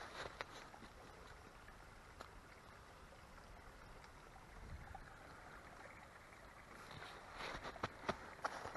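Footsteps on a trail stop just after the start, leaving a faint steady rushing noise, and resume about seven seconds in as a run of crunching steps.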